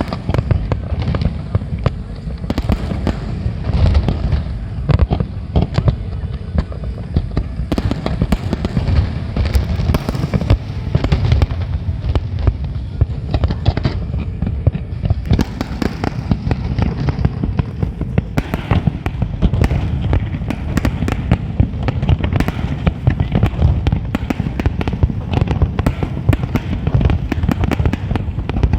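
Large fireworks display: a continuous barrage of many overlapping bangs and crackles, with no pause.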